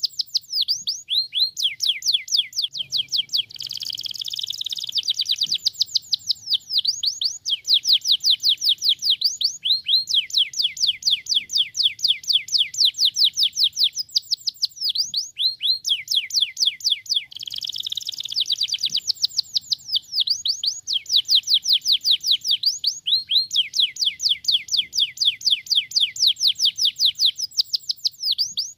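Canary singing in long, rapid trills of quickly repeated descending notes, broken twice by denser warbled passages.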